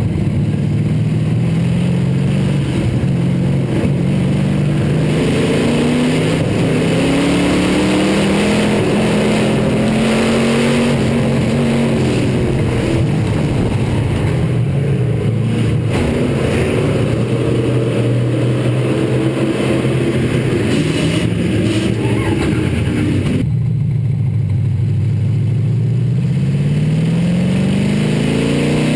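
Hobby stock race car's engine at racing speed, heard from inside the car's cockpit, its pitch rising and falling as the driver gets on and off the throttle. About 23 seconds in the sound turns duller, then the pitch climbs steadily as the car accelerates again.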